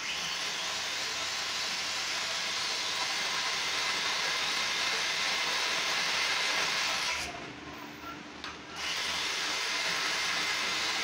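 Valve seat cutter being turned on a valve seat in a motorcycle cylinder head: a steady hissing scrape of the cutter shaving metal from the seat. It pauses briefly about seven seconds in, then resumes.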